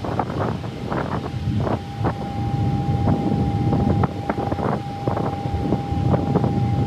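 Wind buffeting the microphone aboard a moving ferry: a gusty low rumble with repeated short flares, and a thin steady whine underneath.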